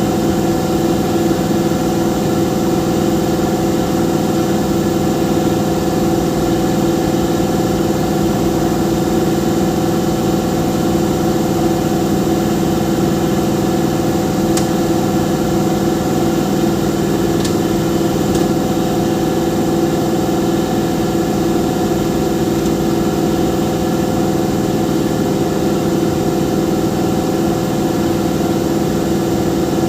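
A machine's engine idling steadily, a constant even hum that holds the same pitch throughout, with a couple of faint clicks about halfway through.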